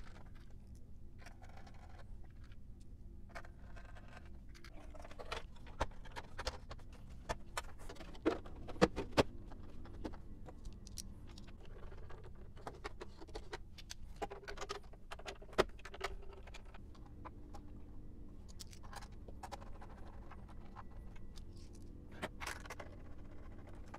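Hand reassembly of an Agilent 4000 X-Series oscilloscope: a screwdriver working on the main board, then the plastic case, handle and metal chassis parts being fitted together, giving a scatter of small clicks, scrapes and taps with a few sharper knocks.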